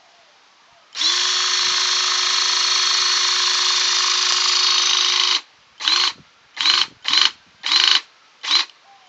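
Powered crimping tool's motor running steadily for about four and a half seconds, then run in five short bursts that each spin up quickly, as it presses a lug onto an EV battery cable.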